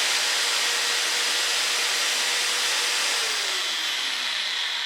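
Bosch AdvancedCut NanoBlade saw, an electric saw with a miniature chain blade, running free without cutting at its high speed setting: a steady motor whine with chain noise. About three seconds in the pitch starts falling as the motor begins to slow down.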